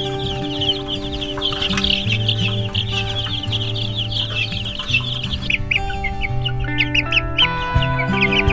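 A brooder full of baby chicks peeping all at once, a dense stream of high cheeps that thins to scattered peeps about five and a half seconds in. Background music with held notes plays underneath.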